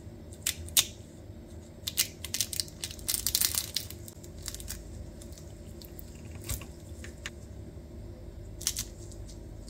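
Crisp, thin layers of homemade baklava crunching and crackling as the pastry is broken into: a few single crunches, a dense run of crackling about three seconds in, then scattered crunches. The crackle is the sign of well-baked, thin layers that stay crisp after soaking up their syrup.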